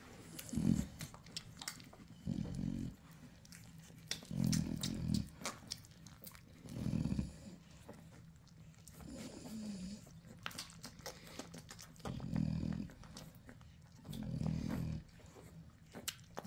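Nano exotic American bully puppies suckling: quick wet smacking clicks throughout, with low grunting breaths every two seconds or so that pause in the middle, and one short low whine.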